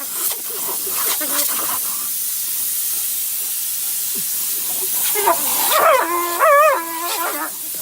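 A steady hiss, with a dog whining in drawn-out, wavering cries over it from about five seconds in.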